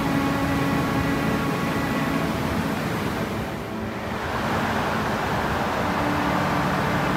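Steady rushing roar of the Chaudière Falls' water, dipping briefly about halfway through before coming back up.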